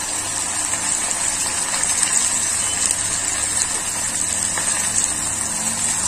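Masala-coated anchovy (nethili) fish pieces sizzling and crackling steadily as they deep-fry in hot oil in a pan. The pieces have only just gone in and are not yet crisp, so the oil is still bubbling hard.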